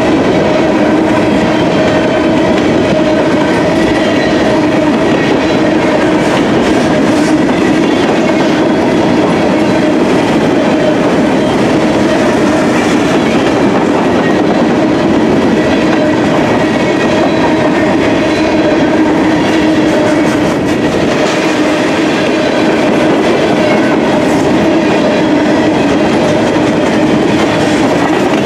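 Freight train of covered hopper cars rolling past close by. There is a loud, steady noise of steel wheels on the rails, with clicking over the rail joints and a steady ringing hum beneath it.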